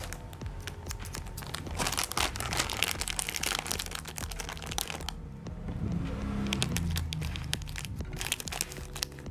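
Clear plastic packaging bag crinkling and crackling as it is handled and cut open with scissors. The rustling is densest from about two to five seconds in and again near the end.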